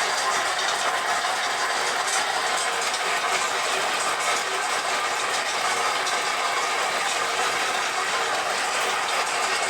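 Machinery running steadily with a dense, even mechanical clatter and no pauses.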